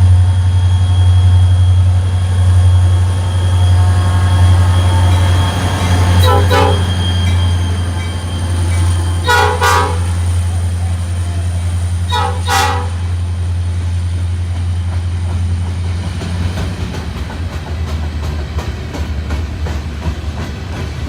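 Norfolk Southern diesel locomotive running with a steady low drone, its air horn sounding three short blasts about three seconds apart. In the last few seconds the engine fades and the cars' wheels click over the rail joints.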